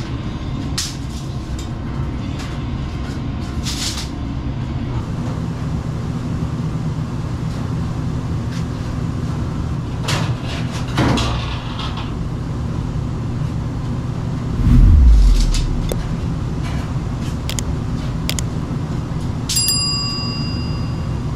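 Knocks and clanks of sheet-metal ductwork being handled over a steady low hum, with one heavy thud about fifteen seconds in. Near the end come a few clicks and a bell-like chime from an on-screen subscribe animation.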